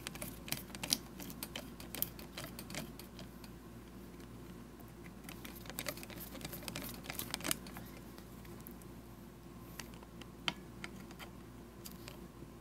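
Light clicks and ticks of a screwdriver turning flathead screws down into the switch mount of a metal grinder handle, coming in three short bouts with pauses between.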